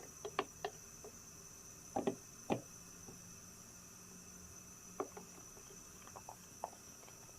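Scattered light clicks and taps of a kitchen utensil against a bowl, a few at a time with pauses between, while stirring a starch-and-milk mixture.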